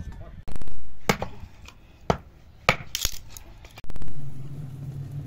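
A series of sharp knocks and clinks, the loudest about half a second in and about four seconds in, followed by a low steady hum near the end.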